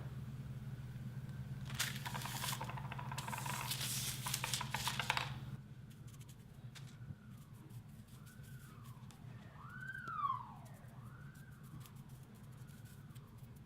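Clear slime being squished and worked by hand, giving a few seconds of dense crackling and clicking over a steady low hum. The crackling and hum stop about five and a half seconds in. Later come several faint rising-and-falling wails, like a distant siren.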